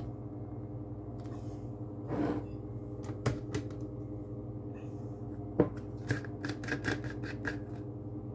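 Scattered clicks and light knocks of plastic blender cups and parts being handled, with a run of quick ticks about six to seven seconds in, over a steady low hum.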